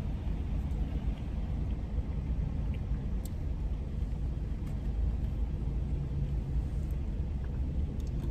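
Steady low rumble of a car idling, heard from inside the cabin, with a few faint clicks.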